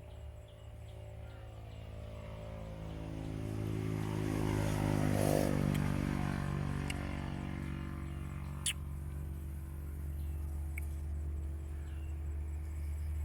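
A motor vehicle's engine, most like a motorcycle, passing close by: it grows louder to a peak about five seconds in and its pitch bends as it goes by, over a steady low engine hum. A single sharp click just before nine seconds in.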